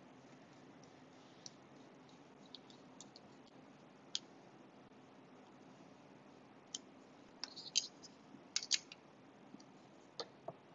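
Small scattered clicks and taps from a folding pocketknife being handled and fitted back together, with a quick run of sharper clicks about three-quarters of the way through and two more near the end.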